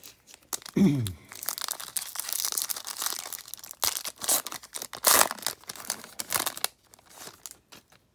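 A 2019 Topps Stadium Club hobby card pack's wrapper being torn open and crinkled, a dense crackle lasting about six seconds with a short falling squeak about a second in, then a few light rustles near the end.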